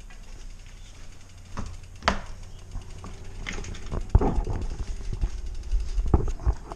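Rocky Mountain Flatline Pro downhill mountain bike being wheeled and handled: a string of knocks and rattles from the bike, the loudest about four seconds in and again near the end.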